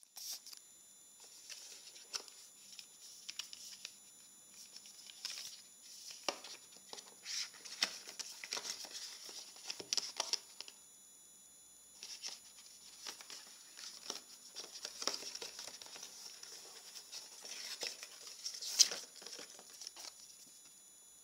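Thin card and paper packaging being handled and unfolded: an irregular rustle with light taps and scrapes, a short lull about halfway, and one sharper snap of card near the end.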